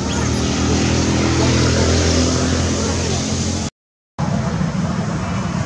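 A motor vehicle engine running with a steady low hum over road noise, broken by a half-second dropout to silence near the end.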